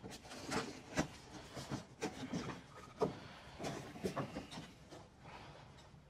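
Cardboard shipping box being opened by hand: rustling and scraping of the cardboard flaps, with a few sharp knocks, the loudest about three seconds in.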